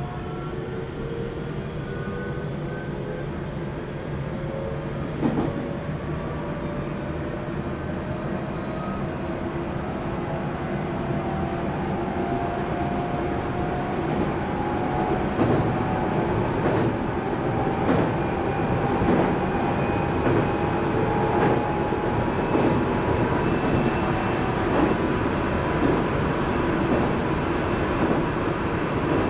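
JR Central 373 series electric train accelerating, its traction motors whining in several tones that rise slowly in pitch over a steady rolling rumble. The wheels clack over rail joints, more often in the second half as speed builds.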